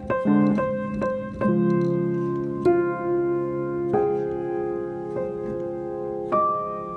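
Soft solo piano music: single notes and chords struck every second or so, each left to ring.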